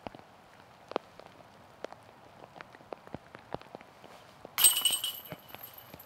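Rain falling, with scattered drops ticking close by. About four and a half seconds in, a sudden metallic clash rings and fades over about a second: a disc striking the chains of a disc golf basket.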